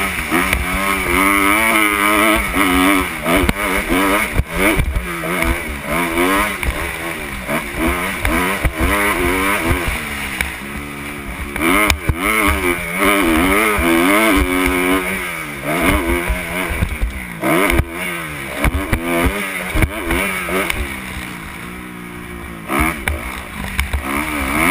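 Kawasaki KX250 motocross bike engine revving hard, its pitch rising and falling again and again as the rider throttles on and off around the track, heard from a helmet-mounted camera with rumbling wind noise underneath. The engine eases off twice, briefly around the middle and again near the end, before pulling hard again.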